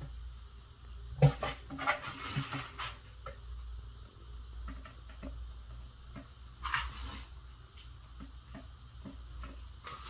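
Dish and hand-handling sounds while fish is being seasoned. A sharp knock of a dish about a second in is followed by a couple of seconds of rustling and clatter, then scattered light clicks and a short rustle in the middle. A steady low hum lies underneath.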